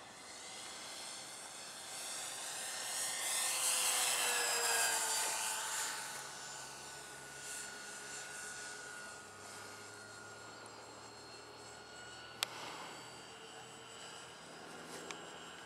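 Twin motors and propellers of a radio-controlled B-26 model bomber whining in flight. The whine grows louder as the plane passes close about four seconds in, then drops in pitch as it flies away. A single sharp click comes about three quarters of the way through.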